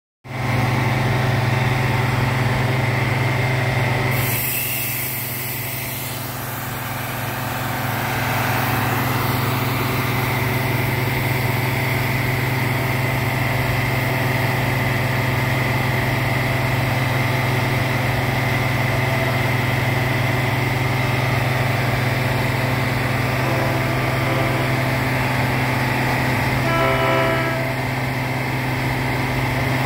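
An engine idling steadily, from the rail maintenance equipment beside the tracks, with a short hiss about four seconds in. Near the end, an approaching Metra commuter train sounds its horn briefly in the distance.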